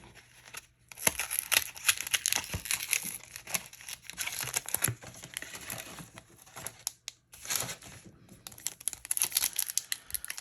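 A foil Yu-Gi-Oh booster pack wrapper being crinkled and torn open by hand, an irregular run of crackles and rips.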